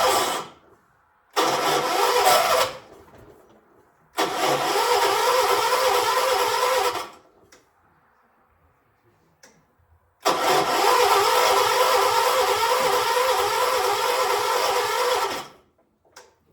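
1976 John Deere 300 garden tractor being cranked on its electric starter in repeated tries: four cranking bursts of rising length, each cut off sharply, with silence between. The engine does not catch, a hard start.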